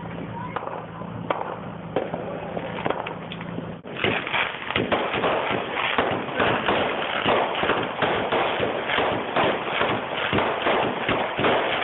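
Fireworks popping: a few scattered pops over the low hum of a car's engine, then, from about four seconds in, a dense run of rapid crackling pops like a firecracker string.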